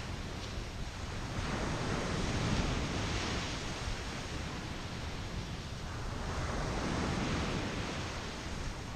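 Ocean surf washing onto a sandy beach, a steady rush that swells twice, about two seconds in and again near the end, with wind rumbling on the microphone.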